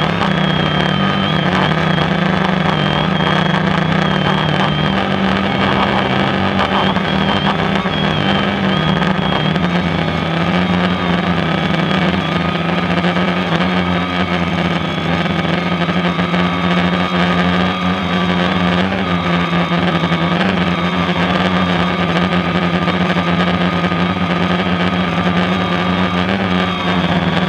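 DJI Phantom quadcopter's four electric motors and propellers buzzing steadily, recorded close up by the GoPro mounted on the drone, as it hovers and drifts slowly. The low buzz holds an even pitch, wavering slightly in the first few seconds.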